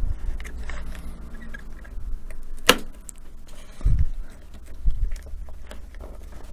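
Small clicks and light knocks of hands and tools handling laptop parts while a replacement display unit is fitted, with one sharp click about two and a half seconds in and dull knocks a little later.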